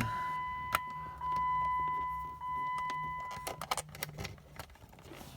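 Steady electronic warning beep, one high tone repeating in long pulses of about a second, stops about three and a half seconds in. A sharp click comes just under a second in, and a run of small clicks follows once the tone ends.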